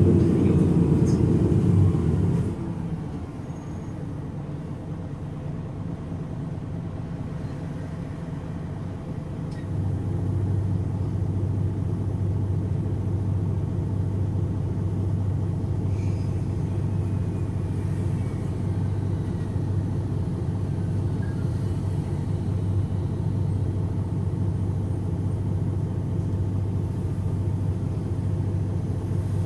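MAN NG313 articulated bus's D2866 six-cylinder turbo diesel running at idle, a steady low rumble. A louder sound drops away about two seconds in, and the low hum grows stronger about ten seconds in and then holds steady.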